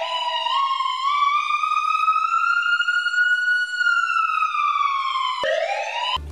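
Ambulance siren in a slow wail: the tone climbs for about three and a half seconds, then sinks, and near the end breaks off and starts a fresh rise from a lower pitch.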